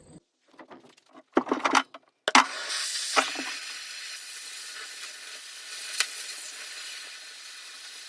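A metal-cutting torch cutting out a bucket tooth from steel plate: a few clicks and knocks, then about two seconds in it starts with a sharp onset and runs as a steady hiss.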